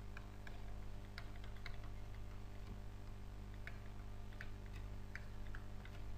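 Faint, irregular light clicks and taps of a stylus on a drawing tablet as handwriting is written, over a steady low electrical hum.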